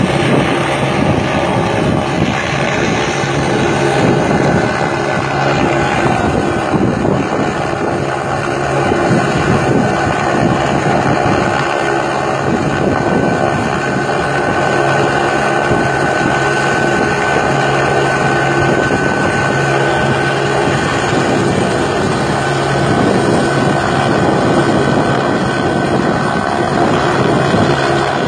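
Helicopter rotor and turbine engine running, a loud steady drone with a fast rotor chop.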